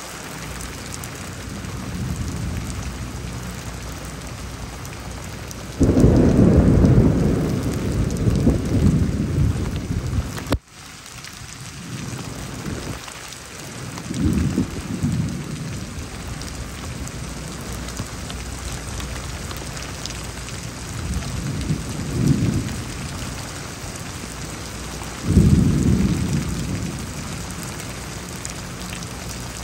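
Heavy rain falling steadily, with several deep rumbles of thunder. The loudest starts suddenly about six seconds in and lasts about four seconds; shorter rumbles come around the middle and near the end.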